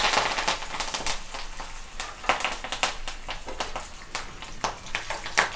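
Fresh curry leaves sizzling and crackling in hot oil in a kadai during a tempering, a steady hiss with sharp pops scattered through it.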